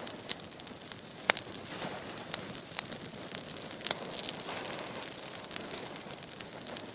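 An outdoor vegetation fire burning: a steady hiss with scattered sharp crackles and pops, the loudest about a second in.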